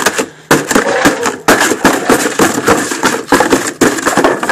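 Cardboard box being torn open by hand, its packing tape ripping, in a dense run of rips and crackles.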